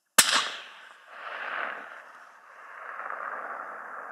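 A single shot from a suppressed 7mm Winchester Short Magnum rifle: one sharp crack, followed by a long rolling echo that swells again after about a second and carries on to the end.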